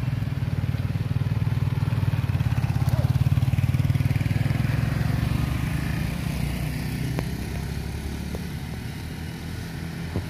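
A motor vehicle's engine running as it passes slowly close by, getting louder over the first few seconds and then fading away.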